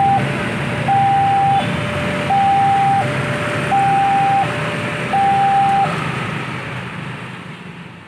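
Railway level-crossing warning alarm sounding a two-tone alternating signal, high and low tones each about 0.7 s long, that stops about six seconds in. Beneath it, a broad rumbling noise fades away toward the end.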